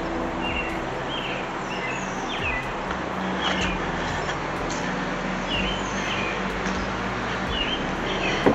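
Small songbirds chirping, short repeated chirps every half second or so, over a steady low hum and background noise. A sharp knock near the end.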